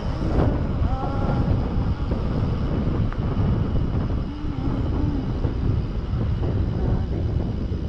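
Wind buffeting the microphone over the rumble of mountain bike tyres rolling on an asphalt road.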